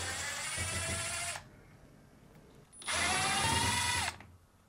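Power drill-driver running in two bursts of about a second and a half each, backing out two Phillips screws from a dryer's top panel, its motor pitch rising slightly during each burst.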